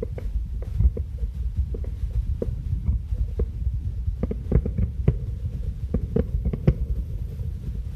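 Fireworks shells bursting in quick, irregular succession: a continuous run of low booms with sharper cracks mixed in.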